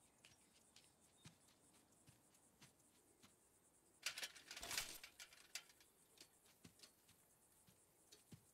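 Mostly near silence with faint scattered ticks. About four seconds in, a bicycle is lifted off the grass, with a brief rustle and rattle lasting about a second.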